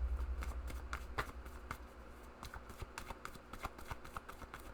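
Tarot cards being shuffled by hand: a run of quick, irregular card flicks and snaps.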